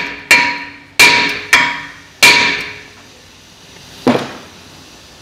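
A steel hammer strikes the rusty front brake rotor of a 2013 Mercedes-Benz GLK350 to break it loose from the hub where it has stuck. Four blows land about two-thirds of a second apart, and each leaves the cast iron rotor ringing. A single duller knock follows about four seconds in.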